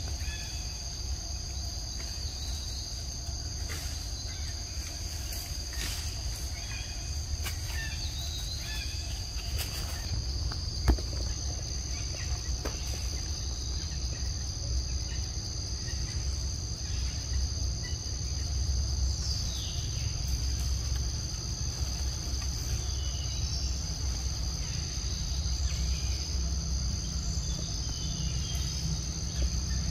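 Insects droning steadily in two high-pitched bands, with scattered short chirps and a low rumble underneath. A single sharp click about eleven seconds in.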